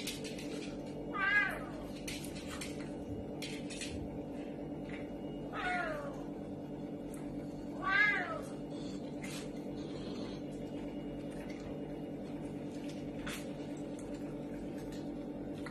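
Serval giving three wavering, meow-like cries, about a second in, near six seconds and near eight seconds, the last with its mouth open and teeth bared. A steady low hum runs underneath.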